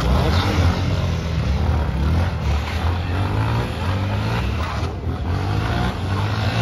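Off-road motorcycle engines running at low speed, the engine note rising and falling with the throttle as the bikes are ridden through a tight coned course.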